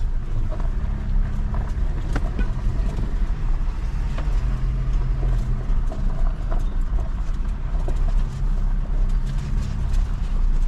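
Jeep Wrangler's engine running steadily as the vehicle rolls slowly, heard from inside the cabin, with scattered light clicks and knocks.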